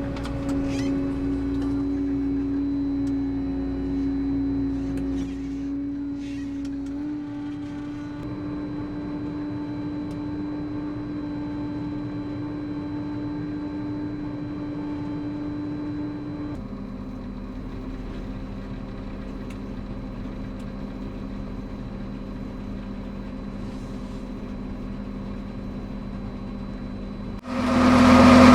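Dewulf RS3060 self-propelled potato harvester's engine and machinery running with a steady drone. The pitch shifts abruptly twice, and the sound gets much louder near the end.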